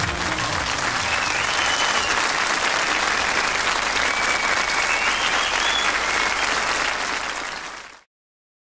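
Audience applauding at the end of a pop song, with the band's last notes dying away in the first moment. The applause fades out and cuts to silence near the end.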